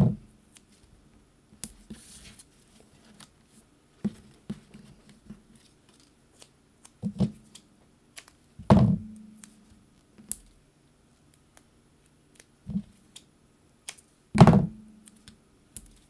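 Cardstock pieces and foam adhesive being handled on a craft desk: scattered light clicks and rustles, with a few dull thumps on the tabletop, the loudest about nine and fourteen seconds in.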